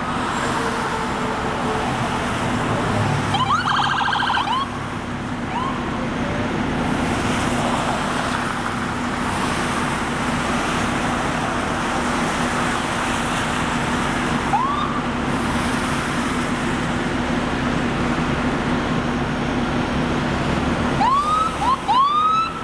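Steady highway traffic noise from cars passing below, with police car sirens sounding in short bursts: a fast warbling yelp about four seconds in, then brief rising whoops, once near the middle and several in quick succession near the end.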